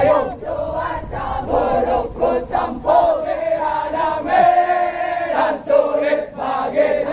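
Large group of military trainees, men and women, singing a jogging chant in unison, with some long held notes.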